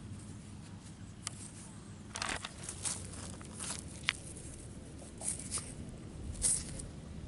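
Scattered short crunches and scrapes of gravel and dirt being handled by hand, over a low steady rumble.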